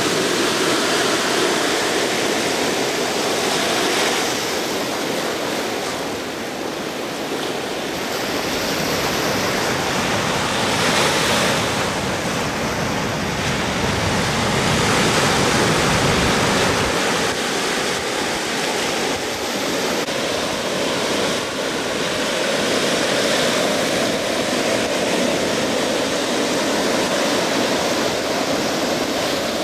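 Ocean surf breaking and washing up the beach: a steady rush that swells and eases as the waves come in.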